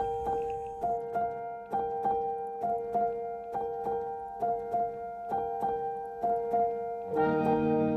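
Background music: a keyboard plays repeated plucked notes in a steady pulse of about two a second, with lower, fuller chords joining near the end.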